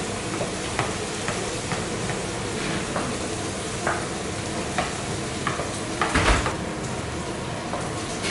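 Hand-beating pancake batter in a stainless steel bowl, with light ticks of the utensil against the metal every second or so, over a steady sizzle from pancakes cooking under domed lids on the griddle. A louder knock comes about six seconds in.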